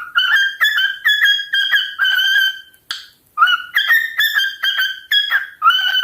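Male cockatiel whistling its song: a quick string of short, clear whistled notes near one pitch, several starting with a small upward slide, with one longer held note and a short pause about halfway through.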